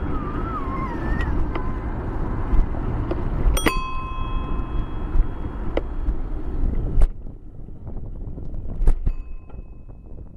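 A bicycle bell struck once about a third of the way in, a clear ding that rings on for about two seconds, over steady wind buffeting on the microphone and tyre rumble. A short wavering squeal comes near the start, the noise drops about two-thirds of the way through, and a fainter ding follows near the end.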